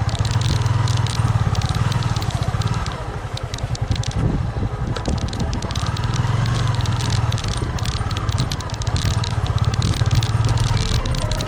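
A vehicle's engine running steadily on the move, with a fast even pulse, easing off for a couple of seconds about three seconds in before picking up again. Crackling and rattling noise runs over it.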